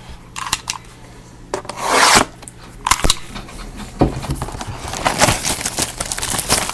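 Trading-card box and cards being handled and unpacked: cardboard and card stock rubbing, sliding and scraping in a run of short, irregular rustles and clicks.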